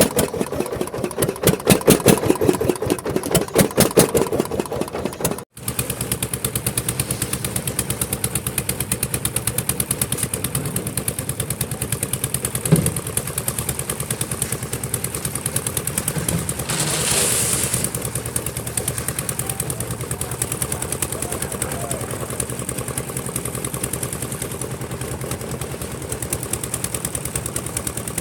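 Concrete mixer machine's engine running steadily with a fast, even knock, broken by a brief cut about five seconds in. A short hiss comes a little past the middle.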